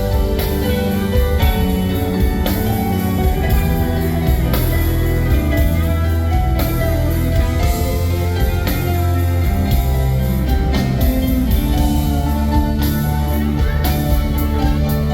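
Rock band playing live, electric guitars to the fore over bass and drums.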